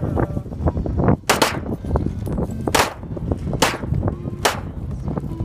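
Four gunshots about a second apart, each sharp crack followed by a short trailing echo.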